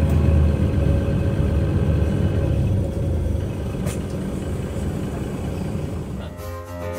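Steady low rumble of an idling engine at an airport stand, with a faint steady hum over it and a single click about four seconds in; piano music comes in about six seconds in.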